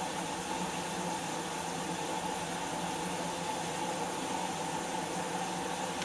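Whirlpool front-loading washing machine running an empty test cycle in diagnostic mode: a steady rush of water with a low mechanical hum, unchanging throughout.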